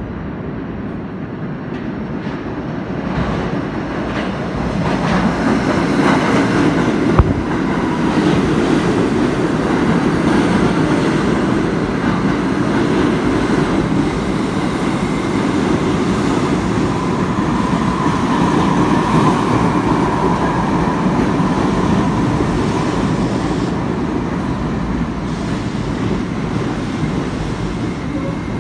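R68A subway train pulling into the station and rolling along the platform: a rumble of wheels on rails that grows over the first few seconds, with a single sharp clack about seven seconds in and a faint whine in the middle.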